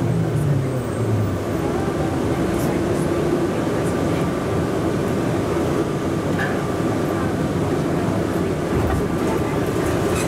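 Atlanta airport Plane Train automated people mover running through its tunnel, heard from inside the car: a steady rolling rumble with a motor whine that falls in pitch during the first second or so, then holds steady.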